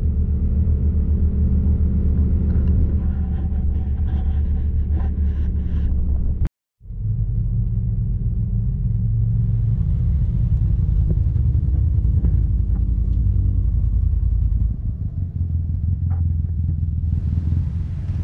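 Side-by-side UTV engine running as it drives, a steady low rumble. The sound cuts out for a moment about six and a half seconds in, then the engine comes back and runs a little quieter for the last few seconds.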